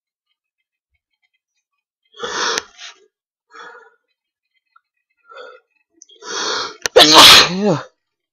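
A man's nose-tickle sneeze, set off with a rolled paper-towel tip: a few short breathy catches, a longer in-breath, then one loud voiced sneeze about seven seconds in, falling in pitch.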